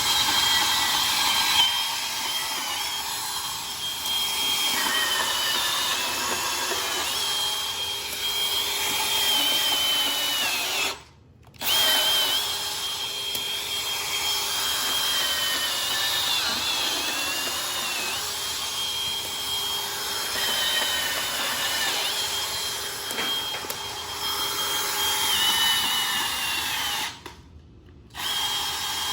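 Bandsaw cutting through a bundle of scrap copper electrical wire: a steady running whine whose pitch dips now and then as the blade bites. It stops briefly twice and starts up again.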